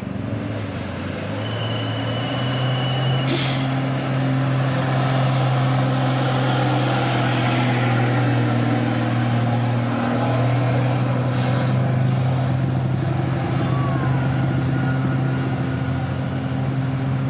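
Heavy bus diesel engine running with a steady low drone as it works through a bend. A short hiss cuts in about three seconds in.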